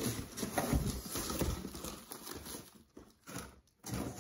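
A boxed gift set and its packaging being handled: irregular rustling and light taps that thin out about halfway through, leaving a few short knocks.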